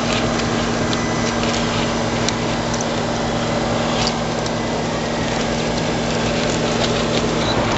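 A 1/10-scale RC rock crawler's electric motor and geared drivetrain whining steadily at a constant pitch, with short clicks and scrapes as its rubber tyres work over wood and rock.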